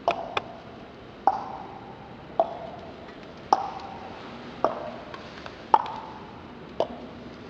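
Percussion struck in a slow, steady beat, about one hit a second. Each hit is sharp and leaves a short ringing tone that dies away.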